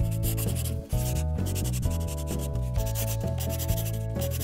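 Felt-tip marker rubbing and squeaking across paper in short strokes as a drawing is outlined, over steady background music with notes that change about every half second.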